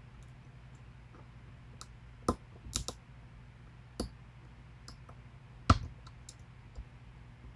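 Small scattered metallic clicks from a lock pick and tension wrench working the modified pins of a pin-tumbler challenge lock, with a few sharper clicks about two, three, four and nearly six seconds in, over a faint steady low hum.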